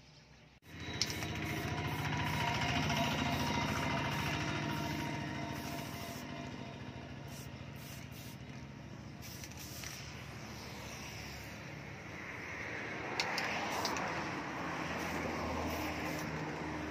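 A motor or engine running steadily with a low hum. It starts abruptly under a second in, and a few brief sharp clicks sound over it.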